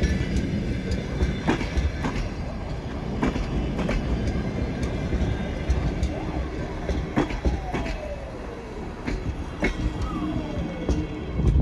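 Passenger coaches of a departing train rolling past: a steady low rumble with irregular wheel clicks over rail joints, and a few thin falling squeals from the wheels about halfway through and near the end.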